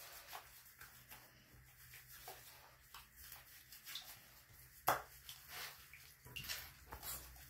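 Hands working shampoo lather into a puppy's wet fur: faint, irregular wet squishing and rubbing, with one sharper click about five seconds in.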